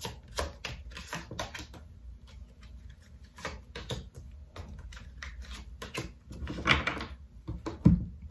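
Tarot cards being shuffled by hand, a quick run of clicking flicks, then cards slid and laid down on the tabletop with scattered taps and rustles and one louder thump near the end.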